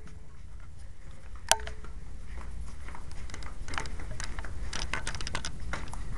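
Footsteps walking through an office, a run of light irregular taps growing slightly louder, with one sharp click about a second and a half in.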